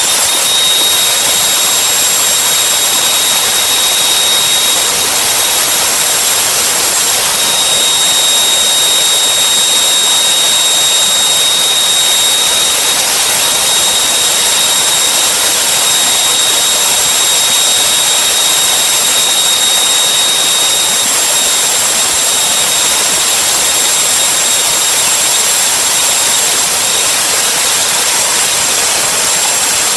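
Electric drill driving a homemade mini wood lathe, running steadily at full speed with a high whine over a loud rushing hiss, as a one-inch chisel turns down the spinning workpiece. The whine fades about two-thirds of the way through.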